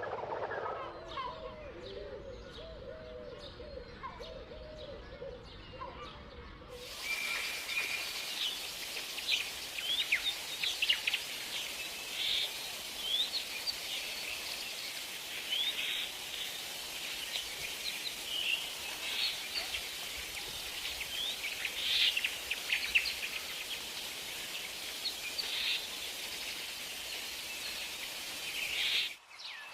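Forest ambience full of bird calls. For the first several seconds a duller recording carries repeated wavering calls. Then it changes abruptly to many short chirps and whistles over a steady hiss.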